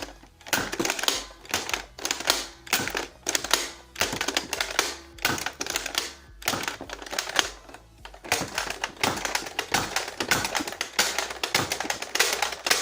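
Nerf Dart Tag Hyperfire blaster being primed and fired over and over: a fast run of plastic clacks and snaps, several a second, in bursts with short pauses between them.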